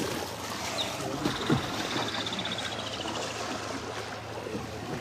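Floodwater sloshing and lapping as someone moves through it, with a couple of low splashes about one and a half seconds in. A rapid high-pitched trill runs from about one second in for two seconds, falling slightly at the end.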